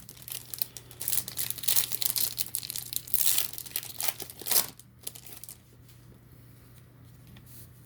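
Crinkling and rustling of plastic or foil trading-card packaging being handled, dense for about five seconds and then stopping.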